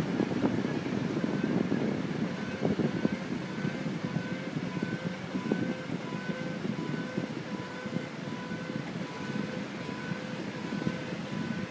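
Humming from the front driver's-side wheel of a 2002 Ford Sport Trac 4x4 while driving, over road noise. From about two seconds in, the hum is a steady tone that pulses evenly, somewhat under twice a second, with no change in pitch.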